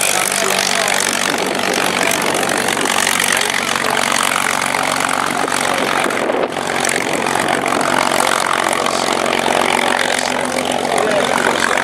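Sharkmouth warbird fighter's V-12 piston engine idling steadily as it taxis, its propeller turning.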